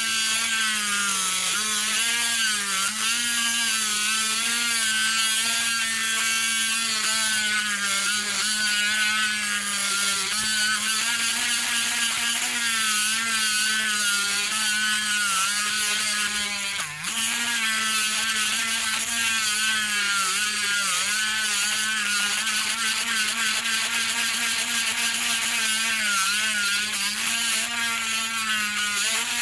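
Small handheld electric grinder running continuously as it grinds the metal rivet ring of a Hot Wheels car's base, a steady whine whose pitch wavers and dips as it works, most sharply about 17 seconds in.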